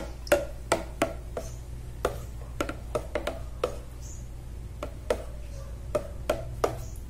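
Metal spoon knocking and clinking against the sides of a plastic pitcher while stirring water, irregular light clicks about three a second, as hydroponic nutrient solution A is mixed into the water.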